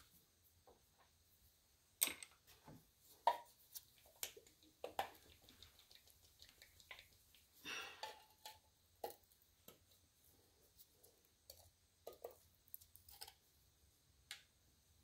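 Faint, irregular small clicks and taps from handling brushes and painting tools during hand lettering of a sign, with two sharper clicks about 2 and 3 seconds in.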